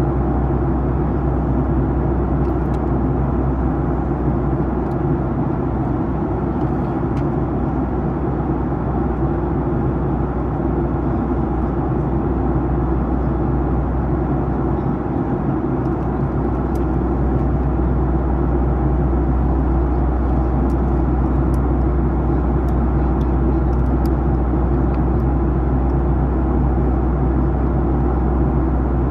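Steady cabin roar of a Boeing 737-900ER in descent: airflow and its CFM56-7B engines heard from a window seat, strongest in the low end. It grows slightly louder about halfway through, with a few faint ticks over it.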